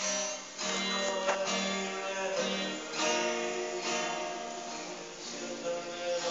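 Background music of strummed acoustic guitar chords, with fresh chords struck about half a second in and again around three seconds in.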